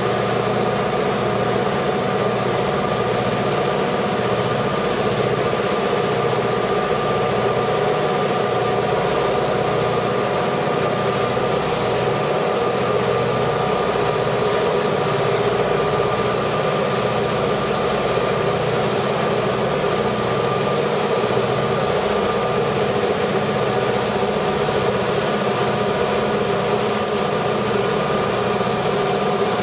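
EMD GP38 diesel-electric locomotives, two-stroke V16 engines, working hard as they drag a freight train slowly up a steep grade. A steady, heavy engine drone with a low pulsing beat and sustained tones on top.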